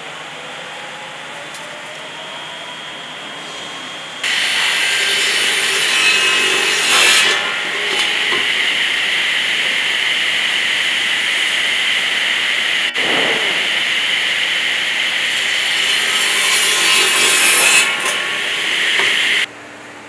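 Circular saw cutting through a teak board: a loud noisy rasp with a steady high-pitched tone that starts suddenly about four seconds in and stops abruptly near the end. Before it there is a quieter hum of mill machinery.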